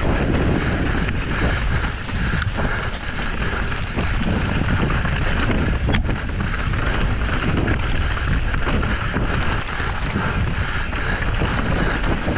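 Mountain bike descending a rocky dirt trail at speed: wind buffeting the microphone over a steady rumble of tyres on stones and dirt, with constant rattling of the bike and a sharp click about six seconds in.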